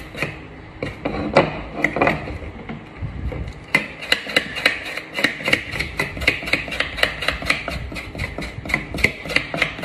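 Kitchen knife chopping an aloe vera leaf: a few separate strokes at first, then from a little under four seconds in a quick, even run of sharp knocks, about three or four a second.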